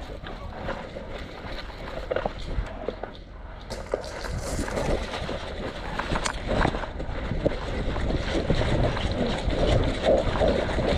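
Wind rumbling on the microphone, with scattered short sharp clicks over it.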